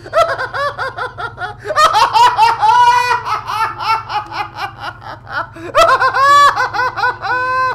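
High-pitched voiced laughter and giggling in quick repeated ha-ha bursts, loudest about two seconds in and again near six seconds, over a low steady hum.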